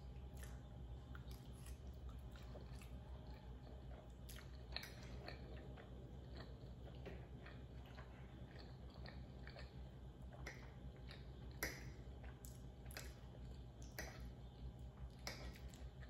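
Close-up chewing of a mouthful of creamy pasta, with many small wet mouth clicks and smacks at an irregular pace, over a steady low hum.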